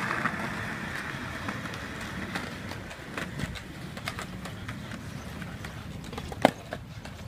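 Skateboard wheels rolling steadily along a concrete path, with faint ticks over the pavement joints and one sharp click near the end.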